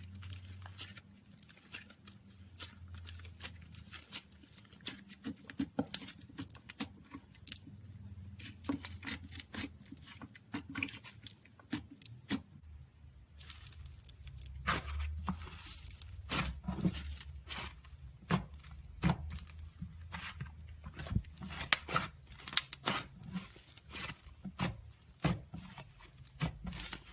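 Slime mixed with clay being squished and stretched by hand, making irregular sticky clicks and crackles, with a denser run of crackling about halfway through.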